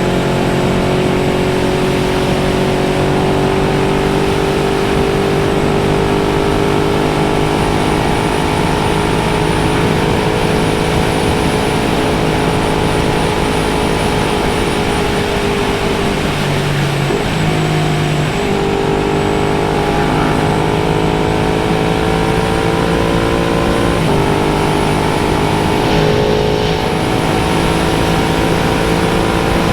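Motorcycle engine at a steady highway cruise, mixed with wind noise. The engine note dips and climbs back up about halfway through, then steps once more a little later, like a gear change.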